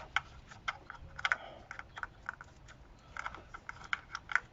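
Plastic connectors of a new injector wiring loom being handled and pushed onto diesel fuel injectors: a string of small, irregular plastic clicks and taps.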